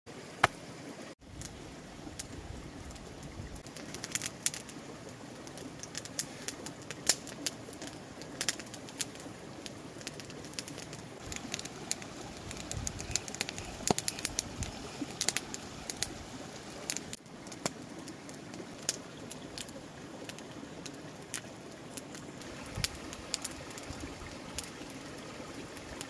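Handling sounds of a raw venison leg being seasoned and larded with bacon strips on a wooden cutting board. Scattered sharp clicks and taps sound over a steady outdoor background.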